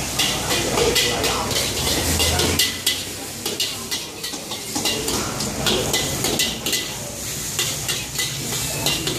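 Char kway teow frying in a wok over a high flame: a steady sizzle, with repeated clanks and scrapes of a metal spatula against the wok.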